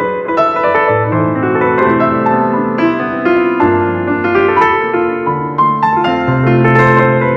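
Background piano music, a melody of changing notes over held bass notes.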